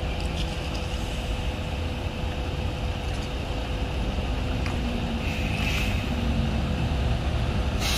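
Coach bus engine running as the bus drives slowly across the yard toward the microphone, a steady low rumble that grows a little louder near the end.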